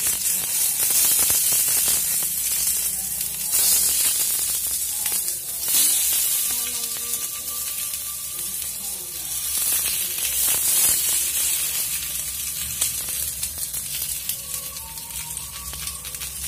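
Banana-leaf-wrapped fish parcels sizzling in oil on a hot flat tawa griddle; the sizzle rises and falls as more parcels are set down.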